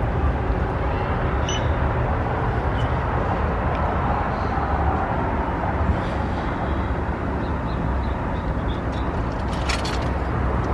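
Steady outdoor street noise: traffic from a nearby road and car park, with a low rumble of wind on the microphone and a few faint clicks.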